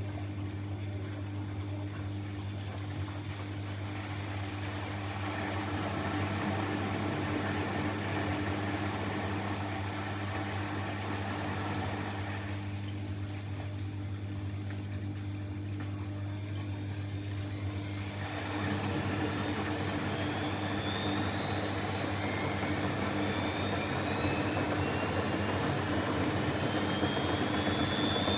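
Bosch Exxcel 1400 front-loading washing machine running with a steady hum. About two-thirds of the way through, a motor whine begins rising steadily in pitch as the drum speeds up into a spin.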